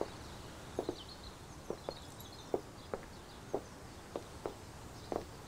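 Unhurried footsteps of shoes on stone paving, a short knock every half-second or so, with birds chirping faintly in the background.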